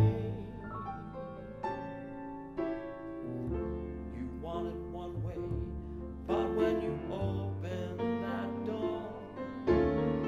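Piano and bass playing a slow, brooding instrumental passage of a show tune: piano notes and chords over long bass notes that change every couple of seconds.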